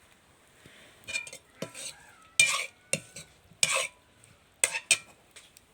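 A cooking utensil stirring and scraping food in a metal pan: about eight short, uneven scrapes with a faint metallic ring, quiet between strokes.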